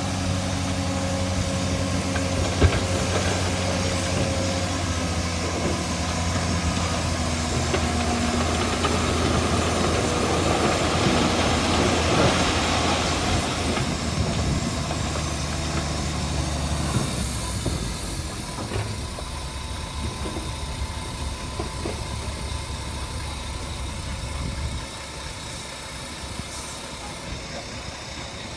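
Diesel engine of heavy earthmoving machinery running steadily, with a rushing, grinding noise that swells to a peak about twelve seconds in. The engine sound falls off after about seventeen seconds and drops again near the end.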